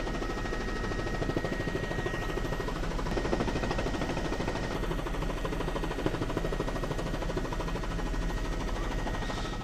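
Helicopter rotor and engine noise heard from aboard a news helicopter: a steady, rapid beating chop over a low drone, with a thin steady whine.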